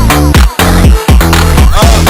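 Loud electronic dance music with a heavy bass beat pulsing about twice a second.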